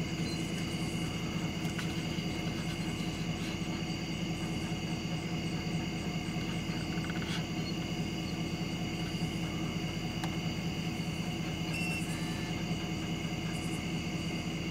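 A steady chorus of night insects such as crickets, holding several unbroken high tones, over a low even hum.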